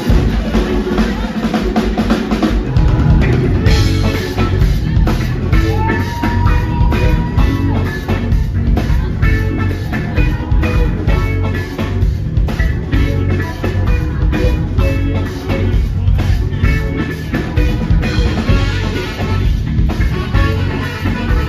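A live band playing an instrumental: drum kit, bass, guitar, Hammond organ and horns. The low end fills out about three seconds in.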